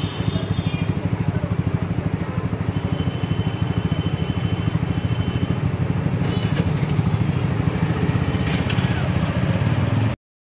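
Small motorbike engine running steadily at low speed in slow street traffic, a fast low pulsing. It cuts off abruptly near the end.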